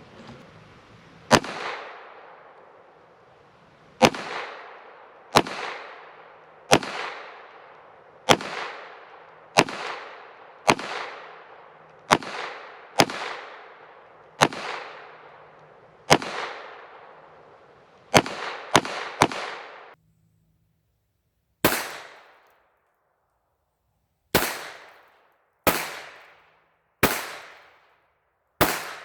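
Taurus TX22 .22 LR pistol fired in slow single shots, roughly one to two seconds apart, each followed by a short echo. About two-thirds of the way in there is a brief break, then the shooting resumes.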